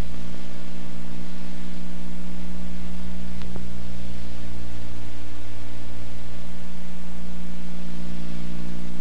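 Steady noise of a car driving at speed, heard from inside the cabin, under a loud even hiss and a low steady hum. A faint click about three and a half seconds in.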